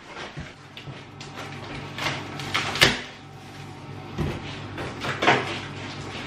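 Large cardboard shipping box being opened by hand: its flaps and the inner cardboard sheets scrape and rustle as they are pulled back, in several short strokes, the loudest near the middle.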